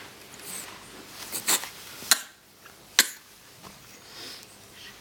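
Short sneezes and snuffly sniffs from a stuffy nose: a couple of soft sniffs about a second and a half in, then two sharp, sudden sneezes about two and three seconds in.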